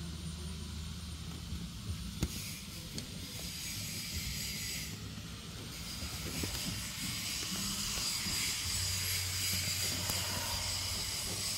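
Outdoor background of a steady low hum with a high hiss over it, and a plastic tarp rustling and crinkling around the middle as it is lifted by hand.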